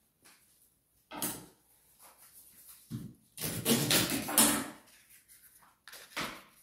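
Kitchen handling noises just out of view: a few short bursts of clattering and rustling, the longest and loudest from about three to four and a half seconds in.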